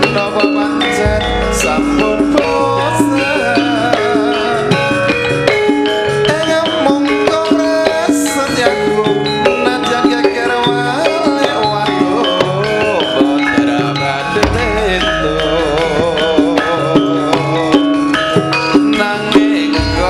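Javanese gamelan music for a tayub dance: drumming and ringing metal percussion under sustained pitched tones, with a voice singing a wavering melody with wide vibrato.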